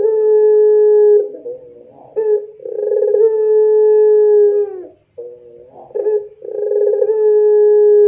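Puter pelung (ringneck/Barbary dove) cooing: each call is a short note followed by one long, held coo that bends down at its end. The end of one coo opens the stretch, a full coo comes in the middle, and another begins near the end.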